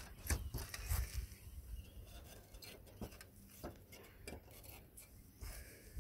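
Scattered light clicks and taps with low thumps, from handling and movement on a concrete tile roof, with a hand touching the tiles. The thumps come in clusters near the start and again near the end.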